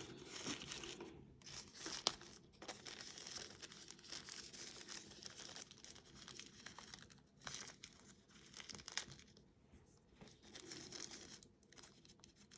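Small plastic packaging bags crinkling and rustling as they are handled, with scattered light clicks.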